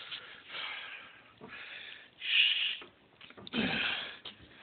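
A man's heavy breathing, a series of noisy breaths. The loudest is a sharp hissing breath about halfway through, followed by a short moan falling in pitch.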